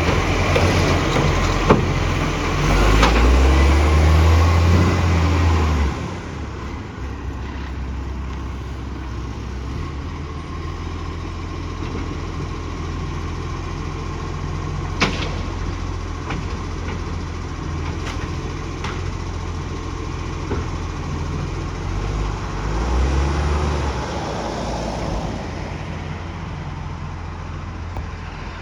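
Garbage truck's diesel engine running with an exhaust leak, a steady low rumble that swells louder and deeper for about three seconds early on and again briefly near the end. A few sharp knocks stand out, the clearest about fifteen seconds in.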